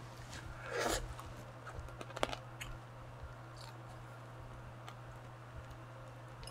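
Quiet mouth sounds of a person eating soy-marinated crab: a short suck about a second in, then scattered small clicks and smacks as the crab is sucked from the fingers, over a steady low hum.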